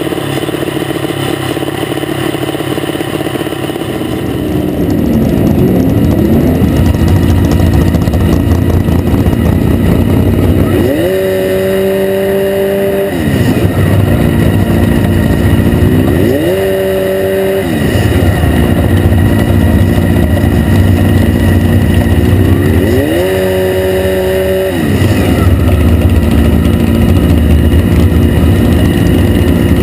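A dragster's engine idling, with a quick rise about five seconds in, then revved hard three times. Each rev is held high for about two seconds before dropping back to idle.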